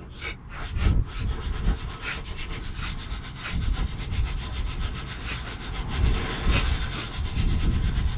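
Control arm mounting bolt being worked loose and turned out, with steady rasping, scraping metal-on-metal strokes.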